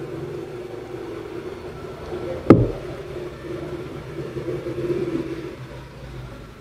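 A single sharp click about two and a half seconds in as the replacement drill motor is handled and fitted into the drill's plastic housing, over a steady low hum.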